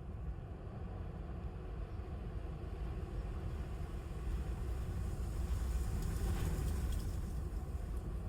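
Strong wind buffeting the car and microphone: a low, steady rumble that swells about four seconds in, with a brief rise in hiss near the peak.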